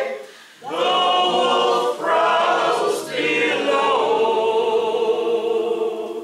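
A mixed group of voices singing a folk song together a cappella, a brief pause for breath just after the start, then sung phrases ending on a long held note.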